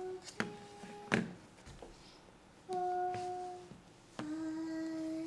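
A voice humming long, steady held notes, four in a row with short breaks, the last one lower. Two sharp clicks about half a second and a second in.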